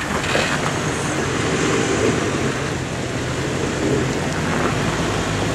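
Jeep Wrangler TJ's 4.0-litre straight-six engine running steadily as the Jeep crawls slowly over rocks close by.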